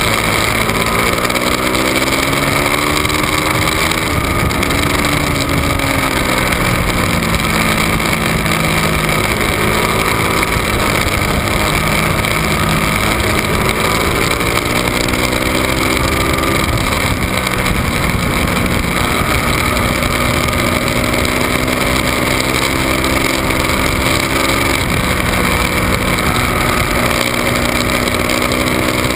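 Ducati 1199 Panigale's Superquadro L-twin engine at full racing speed, heard from the bike's tail: the revs climb and fall several times as the rider shifts and slows for corners, over a steady rush of wind.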